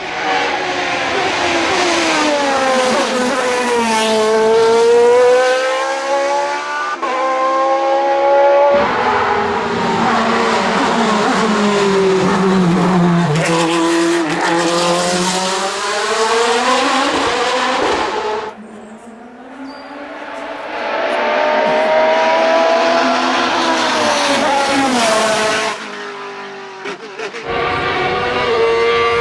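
Hill-climb race cars passing one after another at full attack, their engines revving hard. The pitch drops as they slow and shift down, then climbs again as they accelerate away. The sound cuts abruptly several times between one car and the next.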